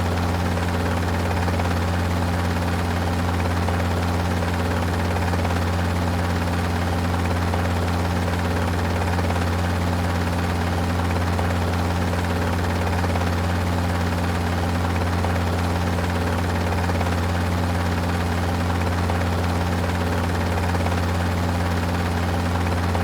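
Helicopter running steadily: a constant low rotor and engine drone, unchanging in pitch and loudness.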